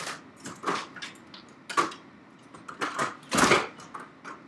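Several short knocks and rattles from a person moving about out of sight, handling a door; the loudest comes about three and a half seconds in.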